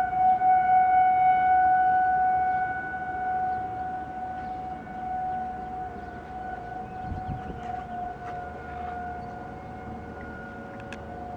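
Outdoor tornado warning sirens sounding a steady tone during a scheduled siren test. The tone is loudest in the first few seconds and then fades, and a second, slightly lower-pitched siren joins in about two-thirds of the way through.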